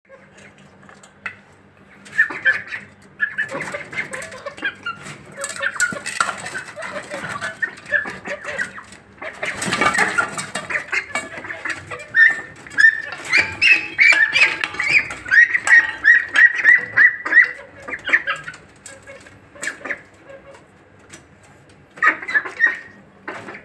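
Young poultry (turkeys, ducks and chickens) calling with many short, high peeps while they feed from bowls, with scattered sharp clicks and a louder noisy stretch about ten seconds in.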